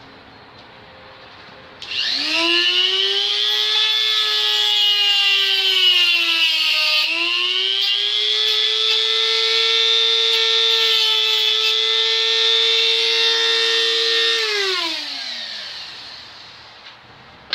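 Handheld rotary tool spinning up about two seconds in and running with a high whine, its pitch dipping briefly under load around seven seconds, likely as it cuts the plastic trim. It then runs steadily and winds down near the end.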